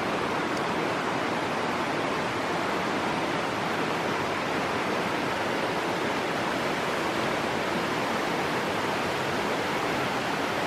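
Rushing creek water in a canyon, a steady, unbroken rush of flowing water.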